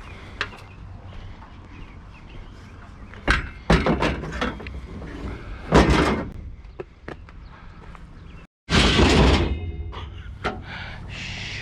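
Steel bed rails being handled and thrown onto a pile: several thunks and clanks, the loudest a crashing clang about nine seconds in that leaves a short metallic ring, over a steady low hum.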